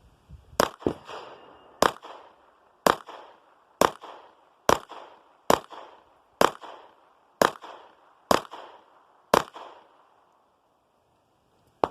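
A string of about ten shots from a Sig P226 Legion 9mm pistol fired single action at a steady pace of roughly one a second, each crack followed by a short echo.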